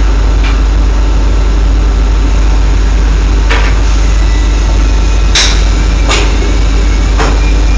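Drilling rig machinery running with a loud, steady low drone. Four sharp metal clanks come in the second half as heavy-weight drill pipe and its handling gear knock together.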